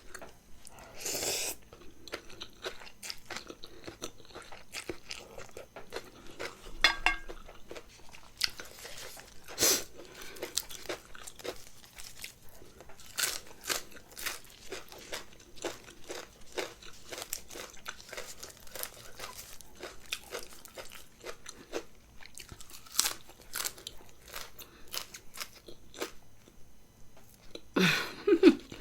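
Close-miked chewing and crunching of a bowl of Thai mixed dry noodles with meatballs and vegetables: a steady run of small wet mouth clicks and crunches, with a few louder bites.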